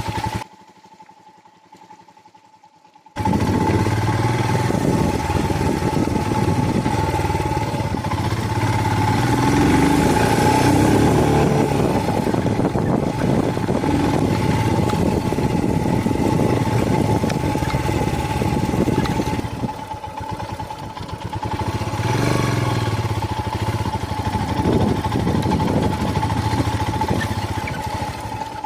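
Motorcycle engine running as the bike is ridden, its note rising and falling. The sound is much quieter for the first few seconds, then loud from about three seconds in.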